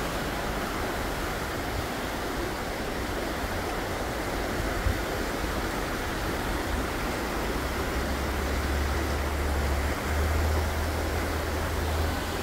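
Steady rush of a rain-swollen stream running in flood, with a low rumble on the microphone from about eight seconds in.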